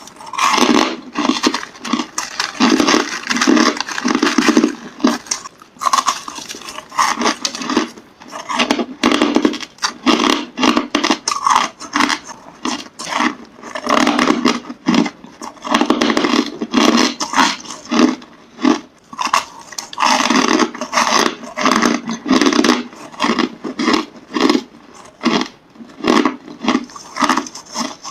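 Hard crushed ice being bitten and chewed close to the microphone: a fast, continuous run of crisp crunches with short pauses between bites.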